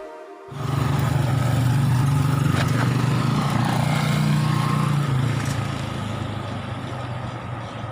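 A motor vehicle's engine running steadily with a low hum under road noise, easing off after about five seconds. The tail of a song cuts off at the very start.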